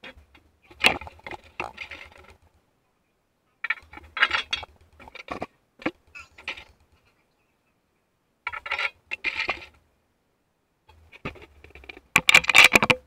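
Small metal hardware on a bench's cast-iron end clinking and rattling as it is handled and fitted, in four short spells of quick clicks and clinks, the loudest near the end.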